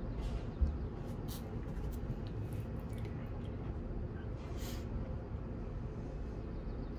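Steady low outdoor background rumble, with a single soft thump about half a second in and a few faint short hisses.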